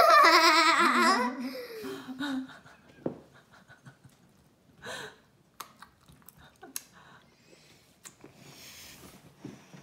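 A girl laughing out loud for about a second and a half, the laugh wavering and trailing off. After that there are only a few faint clicks.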